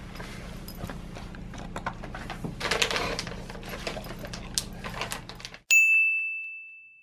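A husky eating dry kibble from a ceramic bowl, with steady crunching and clicking as it chews and noses the bowl. Near the end the eating sound cuts off, and a single bright ding of a message alert rings out and fades over about a second and a half.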